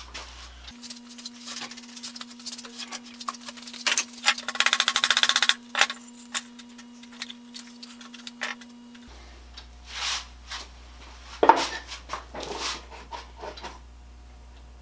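Wooden moulding strips being handled and fitted against a wooden toolbox lid in a dry fit: scattered knocks and taps of wood on wood, and some rubbing as pieces slide into place. About four seconds in comes a fast rattle of clicks lasting just over a second.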